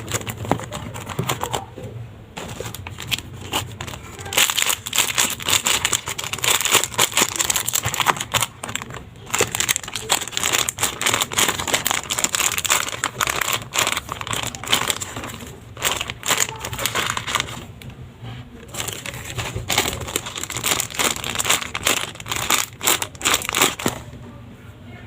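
Homemade paper squishies being squeezed and handled, their taped paper crinkling and crackling irregularly, with a few short pauses.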